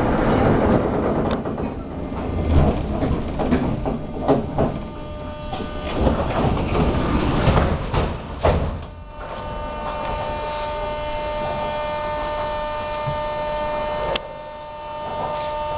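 Moscow metro 81-717/714 train rolling to a stop at a platform, wheels and brakes rumbling with clunks and clicks, settling about nine seconds in. The standing train then gives a steady whine of a few even tones, with a sharp click near the end.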